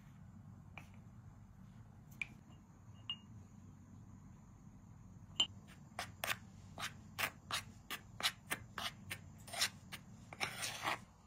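Metal spoon stirring flour in a metal bowl, clicking and scraping against the bowl's sides. A few scattered clicks at first, then a quick run of clicks from about halfway through, and a longer scrape near the end.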